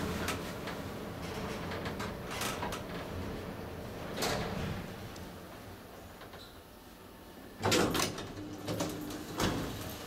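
Kone-modernized passenger elevator descending and slowing to a stop, its running hum fading away, then the automatic sliding doors opening with a loud rush about three quarters of the way through, followed by a couple of clicks.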